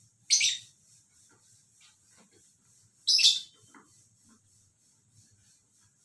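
Cockatiel giving two short, high-pitched chirps, one near the start and one about three seconds later.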